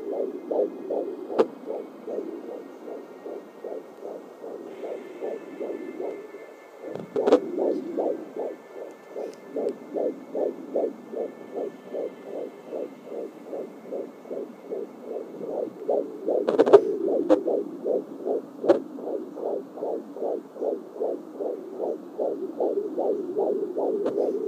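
Fetal heartbeat at about 15 weeks picked up by a home doppler: fast, even whooshing pulses at about two and a half beats a second over a fuzzy hiss. There are a few louder scratchy crackles, which the uploader guesses may be the baby moving.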